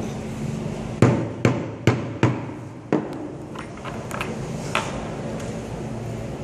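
A wooden mallet knocking steel punches through water-buffalo hide laid on a wooden block, perforating the pattern of a wayang leather puppet. Five sharp knocks come in quick succession about a second in, followed by several lighter taps.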